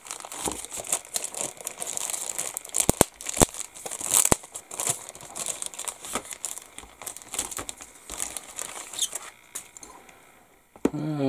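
Clear plastic bag crinkling as a clear-parts sprue from a plastic model kit is worked out of it, with several sharp crackles; the crinkling dies away near the end.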